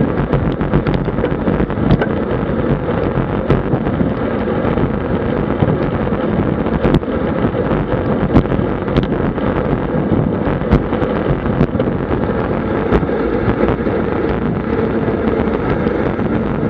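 Wind buffeting the microphone of a bike-mounted action camera at about 50 km/h, mixed with road and tyre rumble, with a few scattered sharp clicks.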